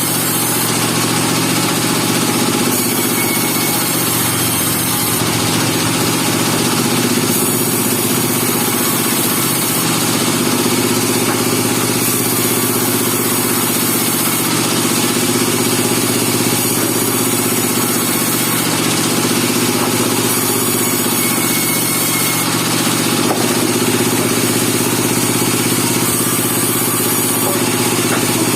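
Band sawmill running with its engine at a steady pitch and a constant hiss over it, the sound of the mill sawing a radiata pine log.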